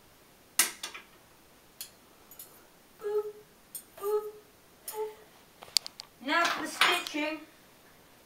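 Metal cutlery clinking a few sharp times. Three short vocal sounds come in between, and a longer vocal sound follows about six seconds in.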